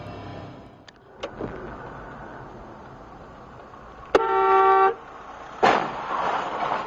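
A car horn blares for just under a second, then about a second and a half later comes the sudden bang of a car-to-car collision, followed by a noisy rush of crunching and scraping.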